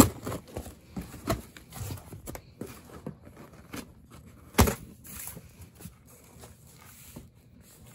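Cardboard box being opened by hand: scissors cutting the packing tape, then cardboard flaps and tissue paper handled in short rustles and clicks, with a sharp knock about four and a half seconds in.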